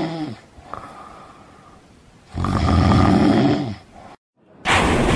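A person snoring: the tail of one loud snore, a quieter breath, then one long, loud snore of about a second and a half. Near the end a sudden loud burst of noise cuts in.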